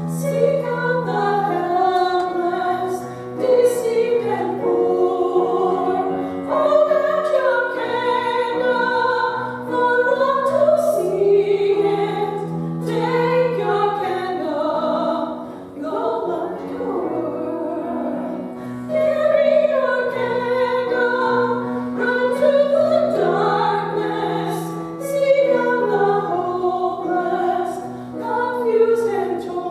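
Two singers performing a slow Christian worship song over an accompaniment of long held notes.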